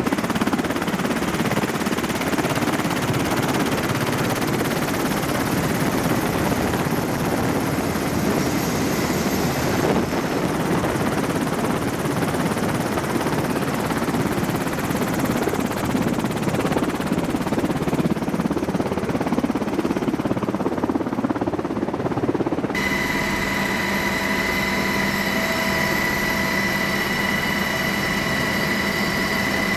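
Helicopter running steadily on the ground, a dense rotor and engine noise. About three-quarters of the way through it changes abruptly to a steadier whine with several held tones.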